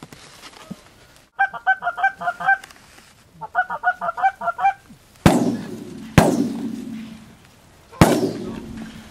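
Geese honking in two quick, rapid runs, then three shotgun blasts, two about a second apart and a third roughly two seconds later, each ringing out across the field.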